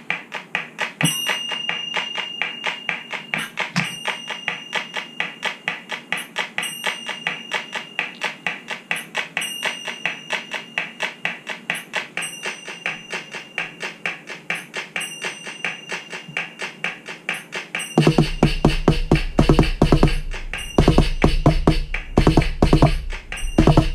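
Roland HandSonic electronic percussion pad on its cajón sound playing a quick flamenco bulerías rhythm in 12/8, with a bright ringing accent recurring a little more often than once a second. About eighteen seconds in, a deep bass-heavy drum layer comes in and the playing turns louder and denser.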